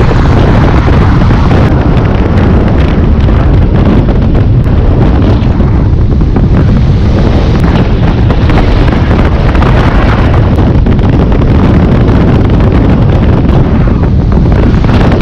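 Loud, steady wind buffeting the microphone of a motorcycle cruising at road speed, with the bike's engine and tyre noise blended into the rush.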